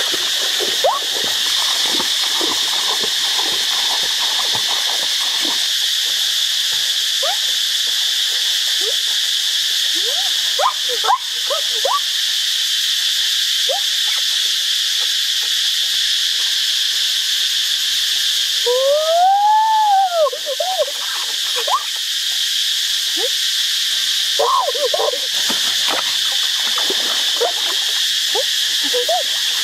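Forest stream ambience: a steady high insect drone with many short chirping calls of frogs scattered through it. One longer call rises and then falls about two-thirds of the way in.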